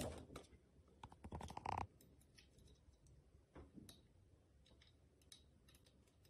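Faint clicks and small metal scrapes of nuts being threaded by hand onto the bolts of a slingshot's metal fork head, with a louder scrape lasting about half a second a little over a second in.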